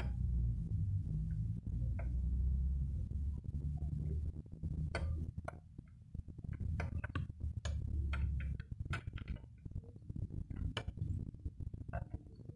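A metal wrench clinking and scraping against the rusty fittings on the cylinder head of a Yanmar B9 engine as it is dismantled: irregular light metallic clicks, thickest in the second half. A low rumble runs underneath for about the first eight seconds.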